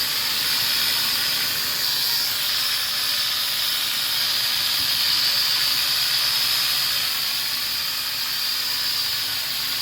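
Budget toy camera drone's small motors and propellers whining steadily in a hover, the high whine shifting slightly about two seconds in as it turns.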